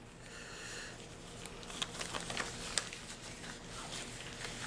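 Faint handling noise: soft rustling with a scattered run of light clicks and ticks, from gloved hands moving things on a cardboard-covered table.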